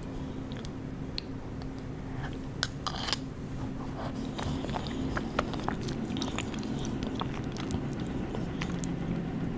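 Close-up mouth sounds of chewing and biting a mouthful of small round red candies: irregular wet clicks and crackles, with a low steady hum underneath.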